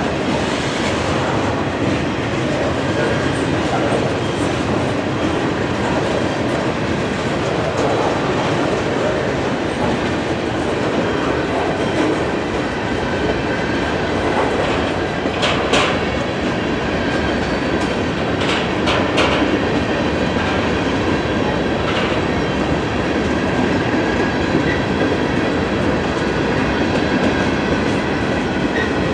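Freight train cars rolling past: a steady rumble of steel wheels on rail with clickety-clack, and a few sharp clicks about halfway through.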